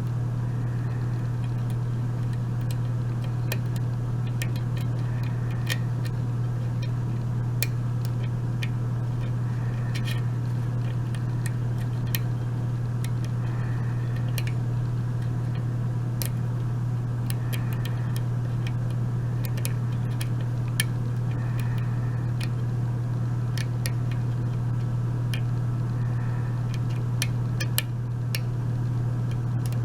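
Short hook lock pick working the pins of a mortise lock cylinder under tension: irregular light metallic clicks and ticks, over a steady low hum.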